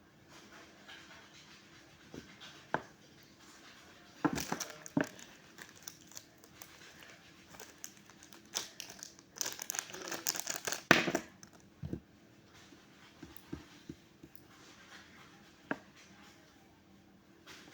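Rustling and crinkling of blind-box packaging, with scattered small clicks and taps as a little toy figure and its accessories are handled. The densest, loudest crinkling comes about nine to eleven seconds in.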